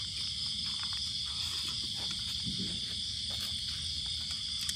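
Steady chorus of night insects, an unbroken high-pitched trill, with a few faint clicks.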